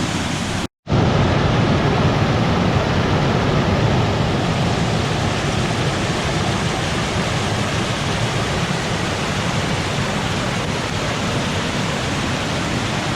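Merriman Falls, a waterfall, pouring with a loud, steady rush. The sound cuts out for an instant just under a second in.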